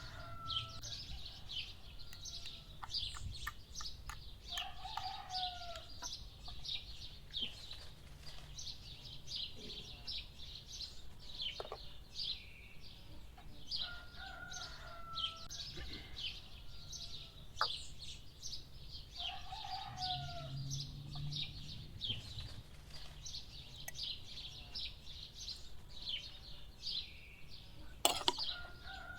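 Small birds chirping constantly, with a chicken giving a short falling call every several seconds. A sharp knock comes near the end.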